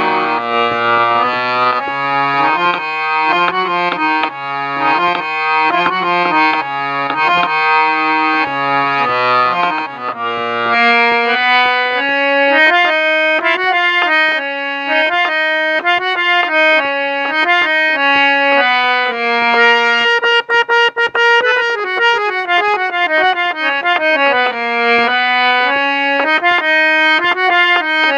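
Instrumental phone ringtone tune, a melody in a steady rhythm of notes. A bass line runs under it for about the first ten seconds, then the melody goes on without it, with a quicker run of notes from about twenty seconds in.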